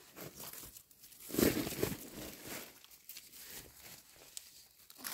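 Rustling and crackling of dry leaf litter as someone moves close to the ground, loudest about a second and a half in.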